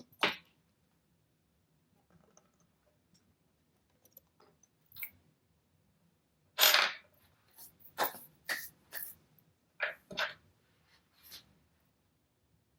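Scattered short knocks and clicks, about ten of them at uneven intervals. The longest and loudest comes a little past halfway, with a quick cluster of knocks after it. These are handling sounds of tools or metal parts being picked up and set down on a workbench.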